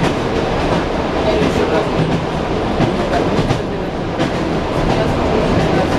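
ED9M electric multiple unit's wheels clattering over rail joints, heard from inside the carriage, with a steady running rumble beneath the irregular knocks.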